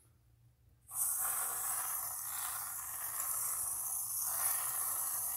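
Aerosol can of whipped topping spraying out whipped cream: a steady hiss that starts about a second in.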